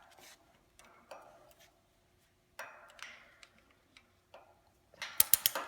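Hand work on a fixture's shock clip, with scattered light clicks and short scrapes as a screwdriver and strap are handled at the clip. About five seconds in comes a quick run of sharp, loud clicks.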